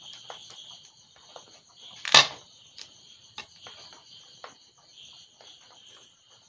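A knife cutting and peeling a yellow cucumber on a ceramic plate: light scrapes and small taps, with one louder knock about two seconds in. Crickets chirp steadily behind it.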